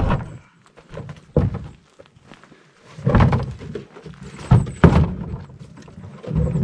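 Several dull thumps and knocks, spaced irregularly, the loudest pair about four and a half to five seconds in.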